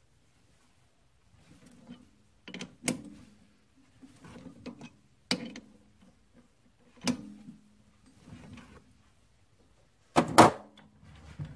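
Chuck key working the three-jaw chuck of a Grizzly G9972Z metal lathe, with the spindle stopped, while a brass workpiece is clamped: a series of sharp metallic clicks and clanks with a short ring after each. The loudest double clank comes near the end.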